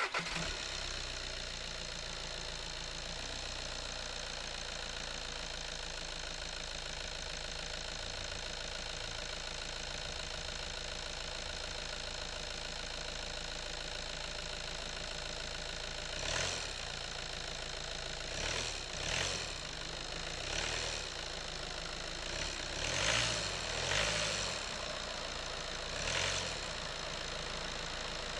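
Car diesel engine idling steadily with a knocking clatter, then revved in a series of short blips from about halfway through, each rising and falling back to idle.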